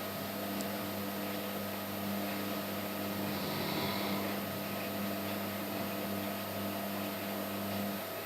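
German shepherd snoring in its sleep: soft slow breaths about every four seconds, heard over a steady low hum that is the loudest sound.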